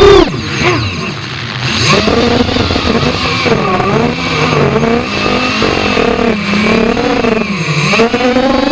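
FPV racing quadcopter's brushless motors whining, their pitch swinging with the throttle. The pitch drops sharply as the throttle is cut at the start, wavers low, then rises and falls with throttle punches, with a deep dip near the end before it climbs again.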